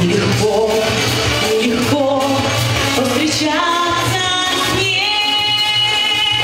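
A woman singing a Russian pop song with instrumental accompaniment. About three and a half seconds in, her voice slides up into a long held note.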